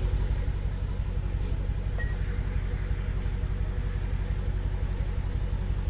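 Car engine idling, heard from inside the cabin with the window down: a steady low rumble.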